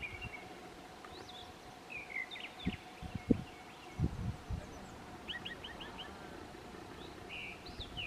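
Small birds chirping and twittering in short scattered calls over quiet outdoor ambience. A few short low thumps, like wind or handling on the microphone, come a little after 2.5 s, 3 s and 4 s.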